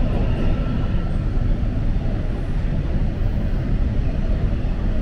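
Steady low rumble of a Toronto TTC Line 2 subway train, heard from inside the car.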